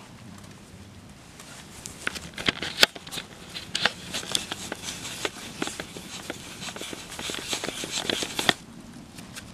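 Camera handling noise as its lens is wiped clean: rubbing and a quick run of clicks starting about two seconds in and stopping abruptly near the end.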